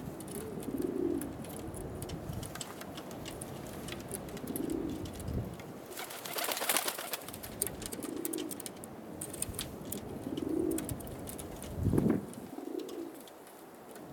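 Altambasi pigeons cooing: low soft coos come about every two to three seconds. There is a brief rustling burst about halfway through and a dull thump near the end.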